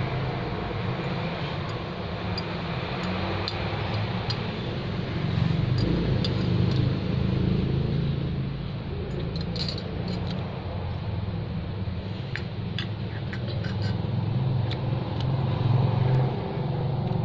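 Metal spoon and fork clinking lightly now and then against a glass plate while eating, over a steady low rumble that swells and fades a couple of times.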